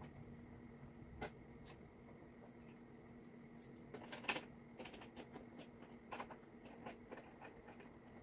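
Faint clicks and ticks of a small hand tool working the scooter's handlebar mounting bolts, a sharp one about a second in and a scatter of them from about four seconds on, over a low steady hum.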